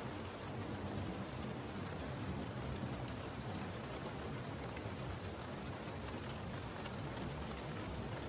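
Steady rain falling, a continuous patter of drops on a surface.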